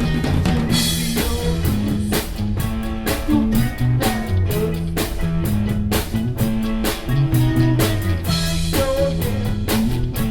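Live rock band playing an instrumental passage: guitar and bass over a steady drum-kit beat, with no singing.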